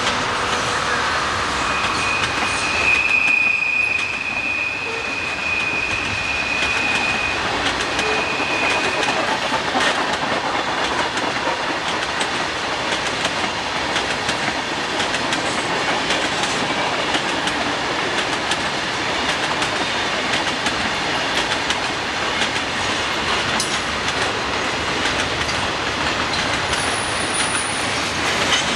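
Freight train of boxcars and tank cars rolling past, a continuous rumble of wheels on rail with clickety-clack over the joints. A high, steady squeal starts about two seconds in and lasts some seven seconds.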